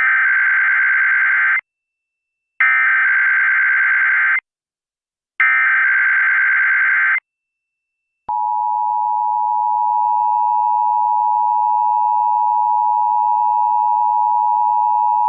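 Emergency Alert System header: three bursts of SAME digital data tones, each about a second and a half long with a gap of about a second between them. About eight seconds in, the steady two-tone EAS attention signal starts and holds.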